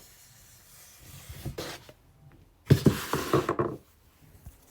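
Rubbing and scraping noises, with a louder cluster of rapid knocks and rubs a little under three seconds in.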